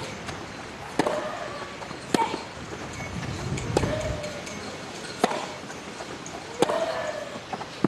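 Tennis rally: rackets striking the ball with sharp pops about every second and a half, each shot answered from across the court, over open-air background noise and brief voices.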